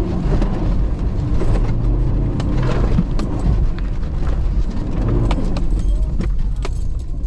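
Off-road 4x4's engine running as it crawls along a muddy trail, with frequent knocks and rattles over the steady low rumble.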